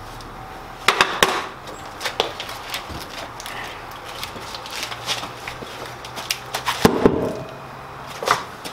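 Wooden knocks and clatter from a dolly and a large maple burl being handled, then a heavier thump about seven seconds in as the burl is tipped over onto the concrete floor.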